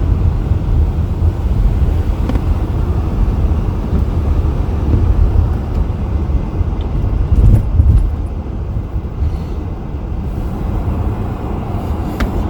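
Steady low rumble of a car driving along a snow-covered road, heard from inside the cabin, swelling briefly about seven and a half seconds in.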